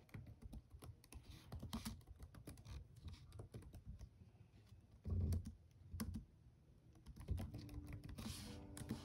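Typing on a computer keyboard: irregular key clicks, with a louder knock about five seconds in.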